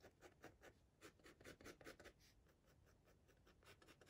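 Fine-tipped ink pen scratching quick short strokes and squiggles on paper, about five strokes a second, faint, with a brief pause about halfway through before the strokes resume.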